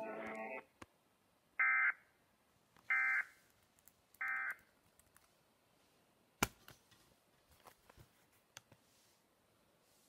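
Music stops, then three short bursts of buzzy data tones come a little over a second apart from a laptop's speaker. These are Emergency Alert System end-of-message (EOM) bursts, which signal that the alert is over. A single sharp click comes about six and a half seconds in.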